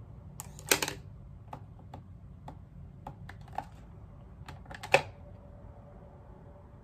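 Scattered light clicks and knocks of small hard objects being handled and set down, with a cluster of clicks about a second in and the loudest knock about five seconds in.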